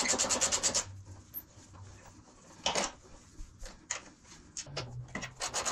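Hand ratchet clicking rapidly, about ten clicks a second, as it turns a bolt on the motorcycle's rear fender bar. The clicking stops under a second in, a few single clicks follow, and fast clicking starts again near the end.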